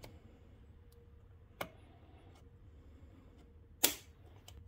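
Two sharp metal clicks from snap-ring pliers and a steel snap ring being worked into the groove of a coilover shock eye that holds the spherical bearing. A small click comes early, and a much louder, sharper one comes near the end.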